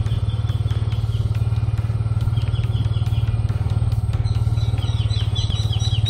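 Motorcycle engine running steadily while being ridden, with runs of short, high bird chirps over it.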